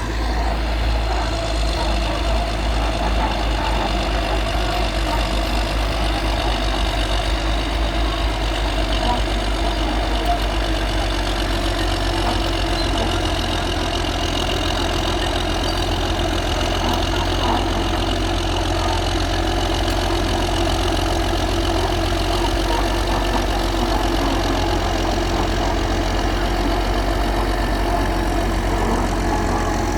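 An engine running steadily with an even low rumble.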